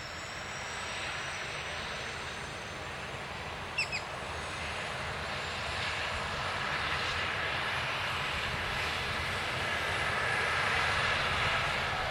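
Twin-turbine AgustaWestland AW139 helicopter running on the ground during start-up, its rotor turning and its turbine whine slowly rising as it grows steadily louder. Two short high chirps sound about four seconds in.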